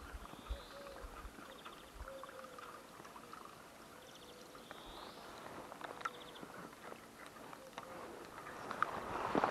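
Buzzbait with a four-blade propeller retrieved across the water surface on a spinning reel: faint churning from the blade turning on the water, with scattered soft clicks from the reel winding.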